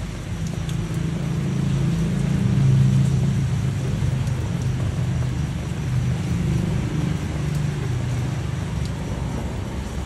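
Low motor-vehicle engine rumble that builds to its loudest about three seconds in and then settles, over a steady hiss.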